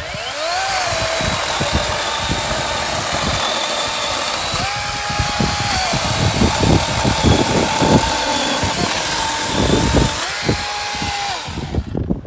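Dewalt cordless chainsaw starting with a quick rising whine, then cutting through a tree, with crackling wood through the middle of the cut. Its pitch climbs back up twice when the chain runs free, and the motor shuts off shortly before the end.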